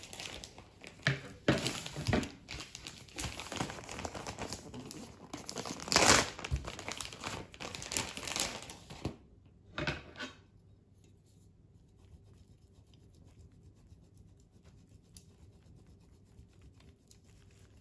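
Crinkling and rustling for about the first nine seconds, then a much quieter, fine rapid scraping of a hand grater grating cheese over a plate of pasta.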